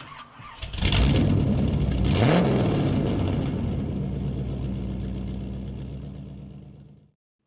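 Car engine rising to a rev about two seconds in, then running steadily and fading out about seven seconds in.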